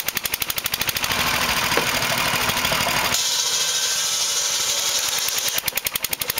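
Belt-driven wood circular saw cutting through a firewood log for about two seconds, a second into the clip, then spinning free again. Under it, the old stationary engine and flat-belt drive keep up a rapid, even clatter.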